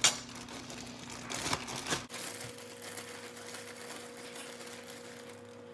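Kitchen handling sounds: a sharp knock right at the start, then a few short rustles and scrapes, over a faint steady electrical hum.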